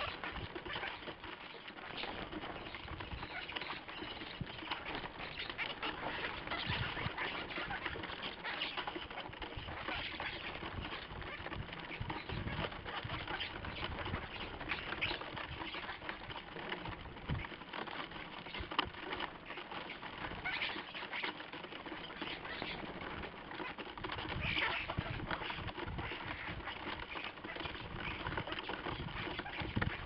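A flock of common starlings, adults and brown juveniles together, calling continuously in a dense mass of chatter, with wings flapping now and then as birds land and take off.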